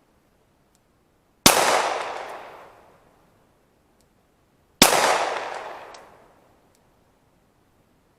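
Two shots from a 9mm Glock 19 pistol firing 115-grain full metal jacket rounds, about a second and a half in and again about three seconds later. Each shot is a sharp crack followed by a long fading echo.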